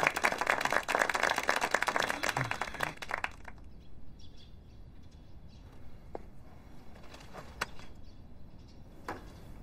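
Applause from a group of people clapping, dying away about three and a half seconds in. Then quiet outdoor ambience with faint bird chirps and an occasional small click.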